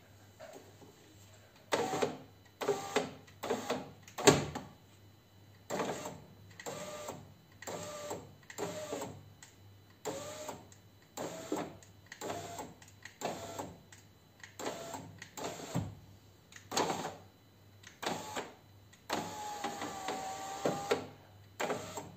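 Peugeot 407 door's electric window regulator motor driven in short runs about a second apart, each with a brief whine as the glass moves, then one longer run of about two seconds near the end. A sharp knock about four seconds in is the loudest sound.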